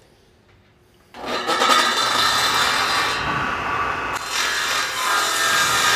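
Circular saw mounted upside down under a homemade table-saw bench, switched on about a second in and then running steadily with a loud hiss; its high end drops away briefly near the middle.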